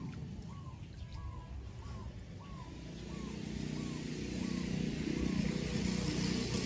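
A short rising-and-falling chirp call repeats about every two-thirds of a second and stops a little past halfway. Under it a low rumble grows steadily louder through the second half.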